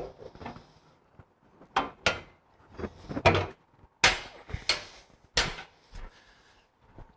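Steel bumper brackets and mounting plate clunking and knocking as they are worked into their slots: about eight sharp metal knocks.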